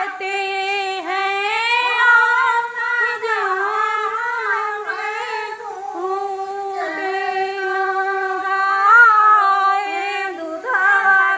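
A woman's high voice singing a Hindi devotional folk song about Shiva going to wed Gauri (Parvati), unaccompanied, in a flowing melody with long held notes.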